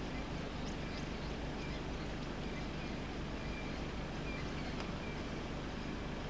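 A steady low engine hum that runs evenly without change, with a few short high chirps over it.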